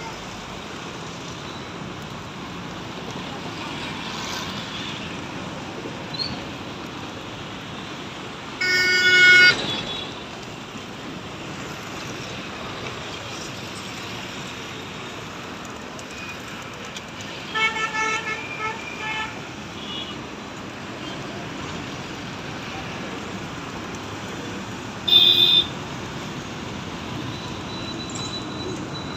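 Steady urban traffic noise with vehicle horns honking over it: one long blast about nine seconds in, a quick run of short toots around eighteen seconds, and a short blast near twenty-five seconds.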